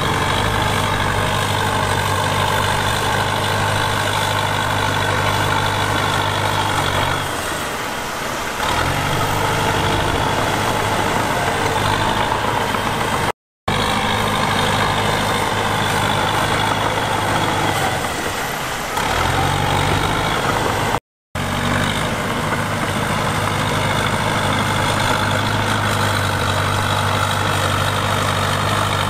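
Heavy diesel earthmoving machinery running steadily, its engine note sagging briefly twice. Twice the sound cuts out completely for a moment.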